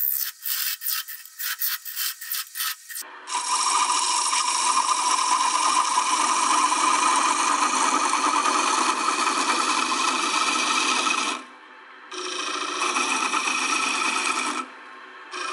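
A lathe chisel cutting the spinning wooden blank of a toy top. For about three seconds it scrapes in quick repeated strokes, about three or four a second. Then it settles into a steady continuous cut that breaks off briefly twice near the end.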